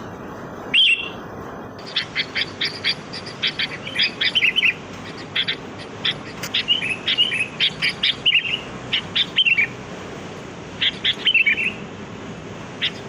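Sooty-headed bulbul calls: one loud call about a second in, then runs of short chirps and quick falling bubbly phrases in bursts, with a pause before a final few notes near the end.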